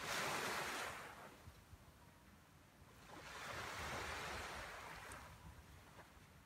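Small waves breaking on a sandy beach: two swells of surf, one right at the start and another about three seconds in, each rising and then fading away.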